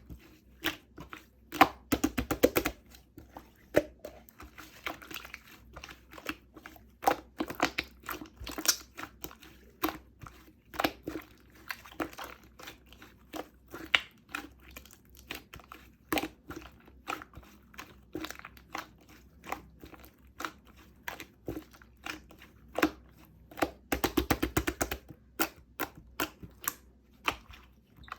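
Clear slime squished and stretched by hand, giving irregular sticky clicks and pops, with two short denser runs of crackling.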